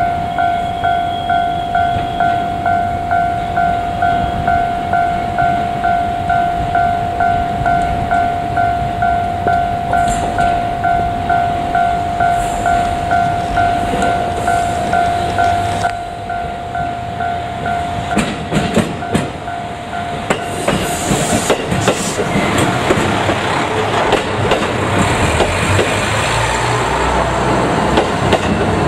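Japanese level-crossing warning bell ringing in a steady, rapid pulsing rhythm, then dying away a little over halfway through. A JR Kyushu KiHa 200 diesel railcar then comes up and through the crossing, its running noise and wheel clatter growing louder toward the end.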